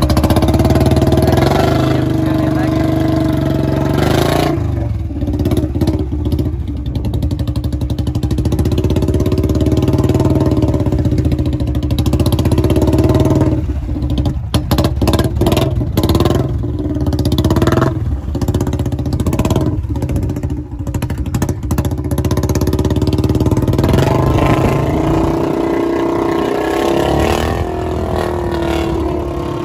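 Royal Enfield Bullet 350's single-cylinder engine revving up and easing off again and again as the motorcycle is ridden slowly through wet mud, with a pitch that rises and falls with the throttle.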